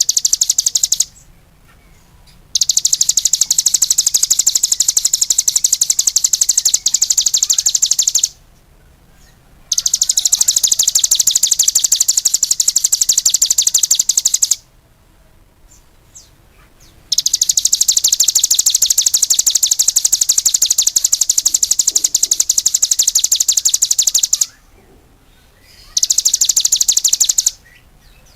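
Cigun songbird singing in long, rapid, high trills of several seconds each, separated by short pauses.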